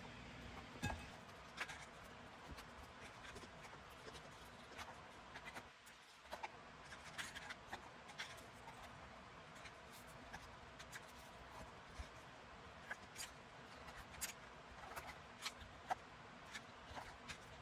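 Faint, irregular small taps and clicks with light rustling, about one or two a second, over a low hiss: small handmade paper books being handled.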